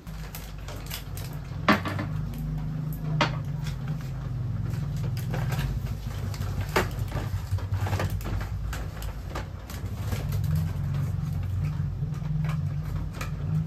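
Small items being handled and set down on plastic shelves and drawers: scattered clicks and knocks, a few of them sharper, over a steady low hum.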